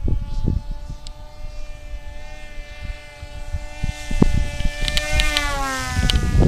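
Electric RC model plane's motor and propeller whining steadily overhead, the pitch falling about five seconds in as it passes or throttles back. Wind gusts rumble on the microphone.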